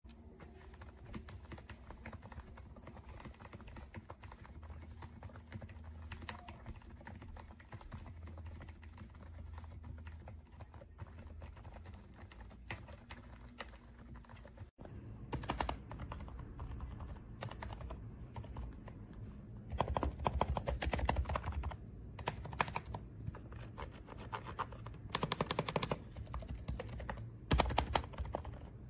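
Typing on the Womier DK75 mechanical keyboard: a fast, irregular run of key clicks. About halfway through there is a brief break, and after it the typing is louder.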